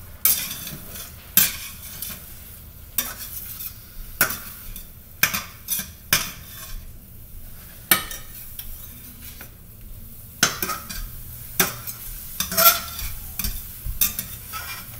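A spatula scraping and stirring egg whites in a frying pan, with irregular sharp scrapes and knocks against the pan about once a second. The egg sizzles faintly as it fries in butter.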